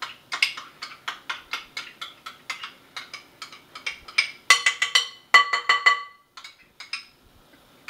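Metal spoon and utensil clinking and scraping against each other and a glass mixing bowl as canned pumpkin is scooped and knocked off into it. The quick clinks come about three to four a second, the loudest ringing ones a little past the middle, thinning out to a few taps near the end.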